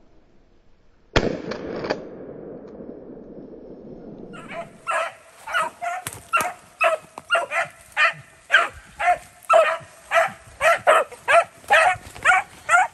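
A shotgun shot about a second in. Then, from about four seconds in, beagles barking in quick succession, about two barks a second.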